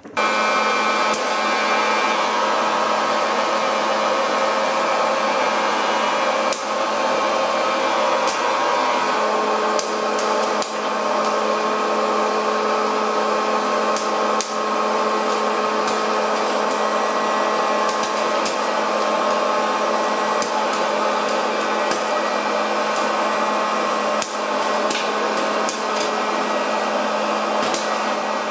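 Elechomes hot-air popcorn maker switching on and running with a steady, loud blower hum. From about six seconds in, corn kernels pop in the heating chamber with sharp cracks that come more often toward the end.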